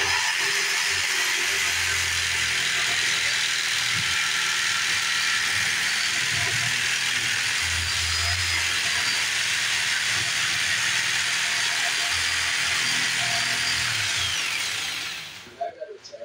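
Corded jigsaw running steadily as its blade cuts through a countertop board. It stops near the end.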